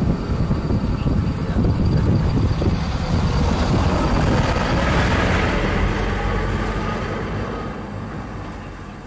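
A motor vehicle running close by: a low rumble that swells about halfway through and then fades away over the last few seconds.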